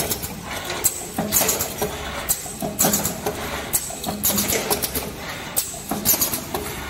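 Automatic filter-cage (spider/star frame) welding machine running: a steady hum under irregular clacks and hissing bursts, about two a second, from the wire feed and welding cycle.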